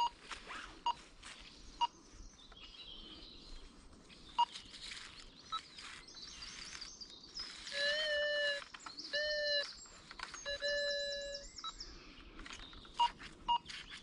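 Minelab Go-Find metal detector sounding three buzzy electronic tones in the second half, each half a second to a second long, as it is swept over a buried target that it reads as valuable. Faint bird chirps in the background.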